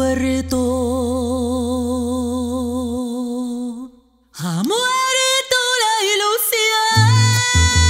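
A woman singing a ranchera holds one long note with wide vibrato over a sustained low bass tone. The note breaks off for a moment a little before four seconds in, then she slides up into another long held note. Plucked low notes of the accompaniment come in near the end.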